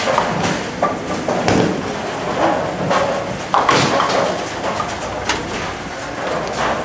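Ten-pin bowling alley: a ball rolling down the lane and pins crashing, with repeated knocks and clatter from other lanes echoing through the hall.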